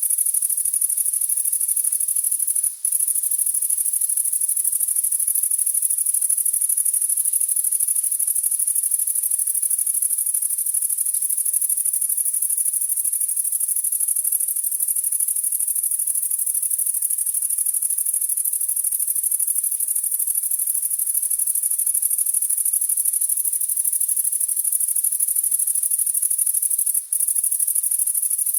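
Grasshopper chirping: a continuous, high-pitched, rapidly pulsing trill that stops briefly twice, once about three seconds in and once near the end.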